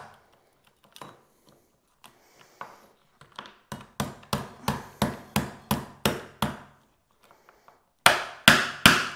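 Back of a kitchen knife tapping blue swimmer crab claws against a wooden cutting board to crack the shells. A few light taps come first, then an even run of about three taps a second from about four seconds in, and harder knocks near the end.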